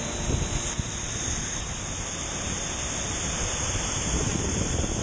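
Waterfall pouring and splashing close to the camera: a steady rushing of water with an irregular low rumble on the microphone.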